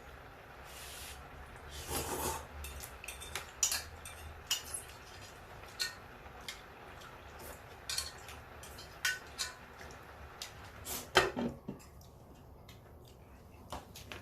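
Eating sounds: scattered, irregular clicks and clinks of cutlery against a plate and dishes, with louder clusters about two seconds in and again near eleven seconds.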